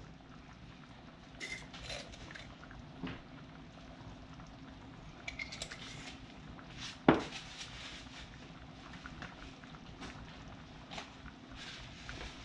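Kitchen handling sounds: light knocks and clicks of utensils and containers against the counter and pot, with one louder clunk about seven seconds in, over a faint steady hum.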